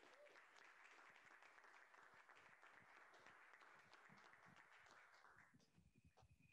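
Faint audience applause, a dense patter of hand claps that dies away about five and a half seconds in.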